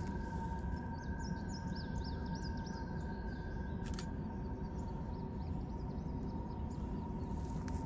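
Steady low rumble of an approaching Norfolk Southern freight train, with a steady high whine, and birds chirping over it; a brief click about four seconds in.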